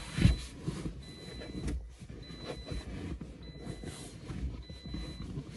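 Rustling and knocking as a faux-leather car seat cover and its straps are handled and tucked under the seat, with a thump just after the start.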